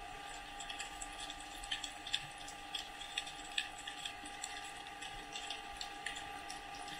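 Faint water ambience: irregular small clicks and crackles over a low hiss, with a faint steady hum underneath.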